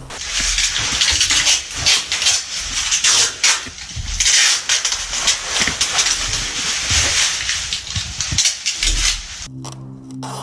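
Plastic sheeting crinkling and rustling loudly as it is handled and pressed over a window frame, a dense run of crackles; it cuts off suddenly near the end.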